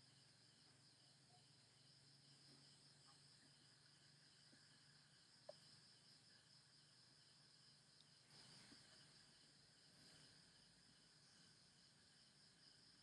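Near silence, with faint crickets chirping steadily in a fine, even pulse and a couple of faint ticks.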